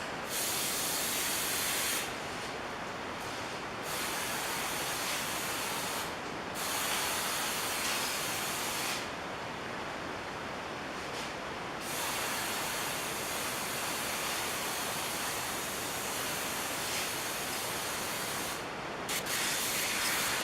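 Aerosol spray-paint can hissing in long sprays, stopping briefly several times.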